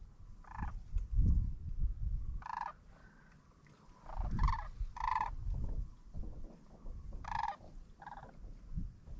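Sandhill cranes calling: short rolling, trilled notes, about six of them, over gusts of wind buffeting the microphone.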